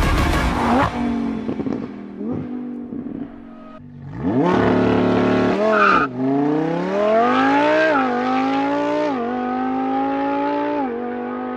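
Novitec-tuned Lamborghini Huracán EVO's V10 engine accelerating hard. The revs climb in rising sweeps from about four seconds in, each cut short by a quick upshift, three shifts in a row.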